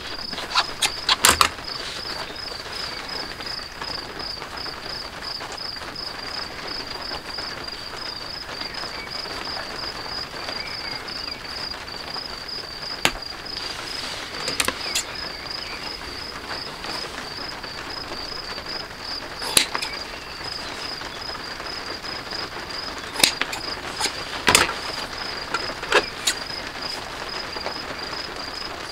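A cricket chirping in a steady, evenly pulsed series, with sharp snips and clicks here and there from scissors cutting leather and hand tools being handled.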